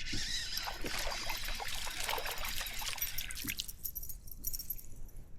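Water splashing and trickling in a quick flurry of small splashes that dies down after about three and a half seconds.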